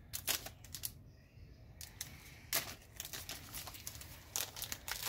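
The foil wrapper of a Magic: The Gathering Kaldheim booster pack being crinkled and torn open by hand, in irregular sharp crackles with a short lull about a second in.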